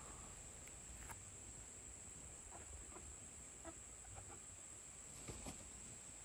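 Faint, soft clucking from a small flock of black Australorp hens as they walk about, with a few scattered short sounds over a low background hiss.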